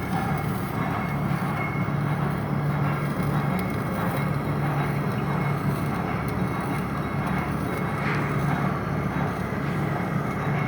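Steady mechanical hum with a constant low drone and a faint high whine, unchanging throughout.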